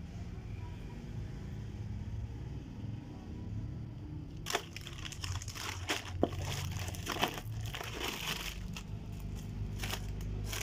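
Shiny chocolate-bar wrappers crinkling and rustling as they are handled over a pile of wrapped bars. The crinkling starts about four and a half seconds in, with a few sharp clicks among it, over a low steady rumble.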